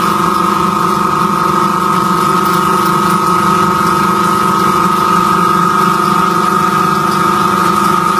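Vibratory polishing bowl running steadily: a constant machine hum with a steady high tone on top, as metal parts churn through the wet polishing media.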